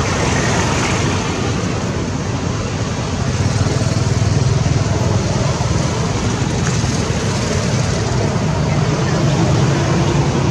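Steady, loud outdoor background noise: a low rumble with an even hiss and no distinct events.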